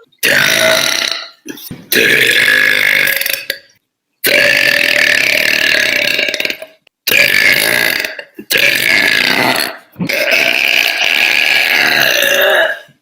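A woman's loud, deep burps, about six long drawn-out belches one after another, each cut off abruptly where the clips are spliced together.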